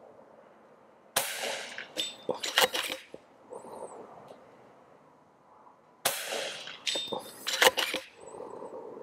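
Two shots from an FX Continuum .25 PCP air rifle with its short 380 mm barrel, about five seconds apart. Each report is followed by a brief faint metallic ring and then a quick cluster of sharp mechanical clicks as the rifle is cycled for the next pellet.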